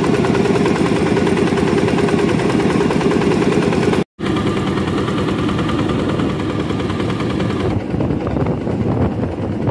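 Small fishing boat's engine running steadily underway, a fast, even chugging over a deep hum. The sound drops out for an instant about four seconds in.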